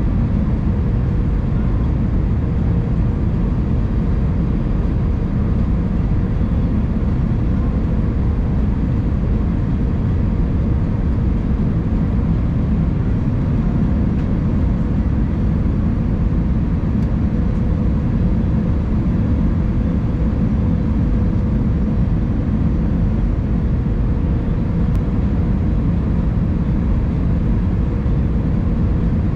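Steady low rumble of cabin noise inside an Airbus A319, heard from a window seat over the wing as the jet descends on approach: engines and airflow, with a faint steady hum in the middle.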